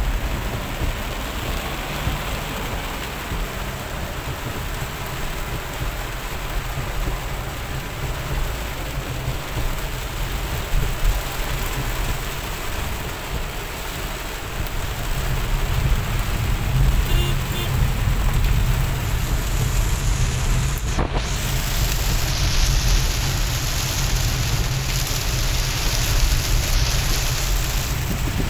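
Heavy rain pelting a car's windshield and roof, heard from inside the moving car, over the low rumble of the car and its tyres on the waterlogged road. About two-thirds of the way in there is a brief dropout, and after it the rain hiss is brighter and louder.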